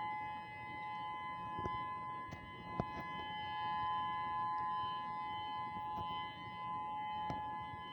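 Civil defense warning siren sounding its test signal: a steady two-note tone held at constant pitch, without rising or falling.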